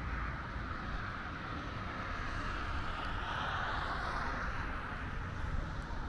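Steady road noise, with a motor vehicle passing that swells and fades about midway.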